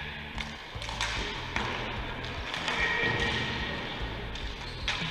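Scattered sharp knocks of plastic sticks and a ball during a ball hockey game, with a brief high squeak-like tone about three seconds in.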